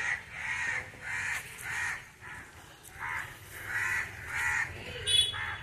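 Crows cawing: a run of about eight short caws, with a brief pause about two seconds in.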